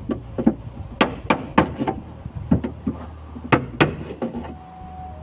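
Hammer tapping the dents and waves out of a Renault Symbol's steel door panel: about ten sharp strikes, irregular and often in quick pairs.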